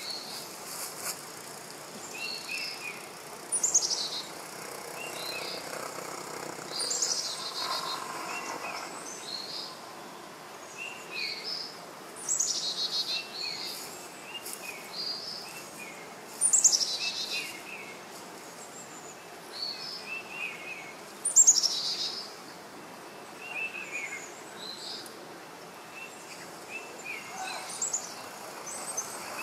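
Birds calling over and over in the surrounding trees: short chirps and high, quickly falling whistles every second or two, a few much louder than the rest, over a faint steady hiss of outdoor ambience.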